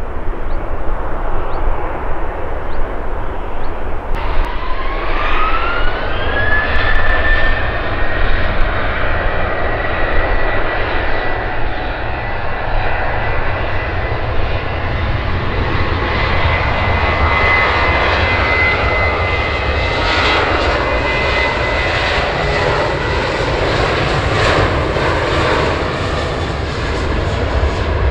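Boeing 737 jet engines spooling up: a whine that rises for about three seconds and then holds steady over a deep, continuous rumble, the sound growing brighter in the second half.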